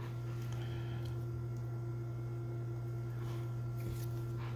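Steady low electrical hum over room tone, with faint soft brushes of cardboard trading cards being slid off a stack by hand.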